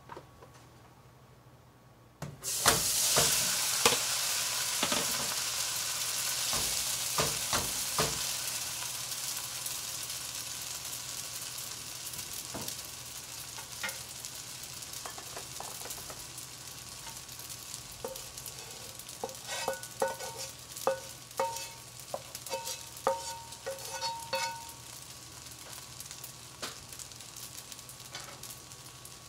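Drained spaghetti dropped into a hot pot, sizzling loudly at once and slowly dying down, with a few knocks of the utensil at the start. Later comes a run of short, light metallic taps.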